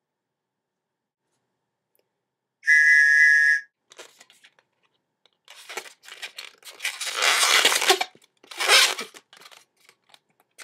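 A loud whistle-like squeal lasting about a second, then the squeaks and scrapes of a long latex modelling balloon being twisted by hand, in several bursts.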